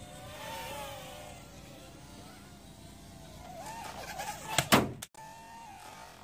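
Jun Cheng mini quadcopter's small motors and propellers whining, the pitch rising and falling as the throttle changes. About four and a half seconds in there is a loud sudden thump, followed by a very brief dropout.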